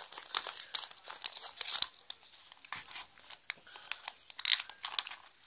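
Chocolate-bar wrapper crinkling and crackling irregularly as it is handled, loudest about two seconds in and again near the end.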